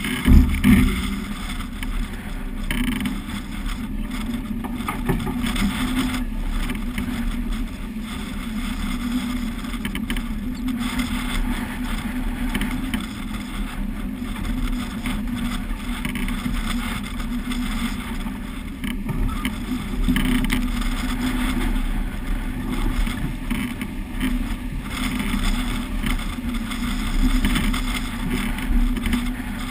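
Steady rush of wind and water on a sailing yacht under way, heeled over in a stiff breeze, with a low rumble throughout. A loud thump about half a second in.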